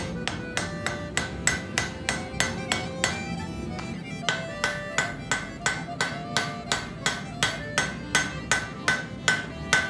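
Hand hammer striking a white-hot axe blade on a steel anvil in quick, even blows of about three a second, each with a bright anvil ring, with a short pause about three seconds in. The blows are forge welding the fluxed edge steel into the folded blade.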